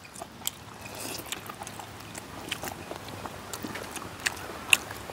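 Quiet eating sounds: chewing, with scattered small clicks and taps from eating at the dishes.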